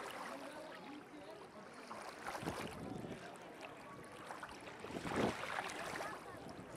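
Faint outdoor ambience of distant voices over a low hiss, with two brief louder rustles about two and a half and five seconds in.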